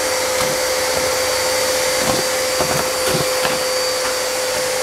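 A canister vacuum cleaner running with a steady whine, sucking up scattered bits of tissue paper, with a few brief faint swishes in the middle.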